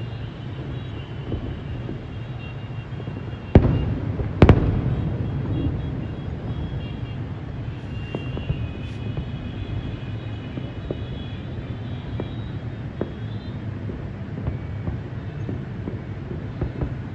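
Aerial fireworks display: two loud shell bursts about a second apart a few seconds in, then scattered smaller cracks over a steady low rumble.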